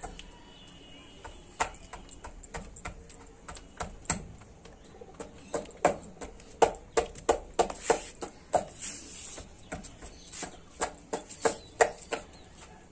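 A pestle pounding jujubes (kul) with salt and chilli in a steel bowl: irregular sharp knocks, sparse at first and coming a few a second from about five seconds in.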